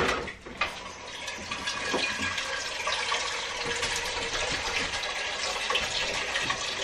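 Kitchen tap running into a pot, filling it with water: a few clanks of the metal pot at the start, then a steady rush of water.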